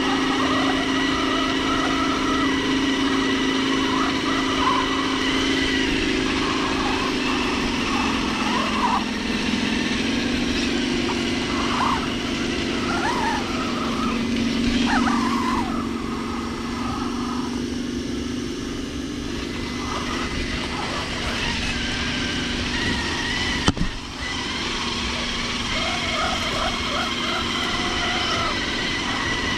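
RC car's motor and drivetrain whining steadily as it drives, the pitch stepping down a couple of times as the speed changes. A single sharp click comes about three-quarters of the way through.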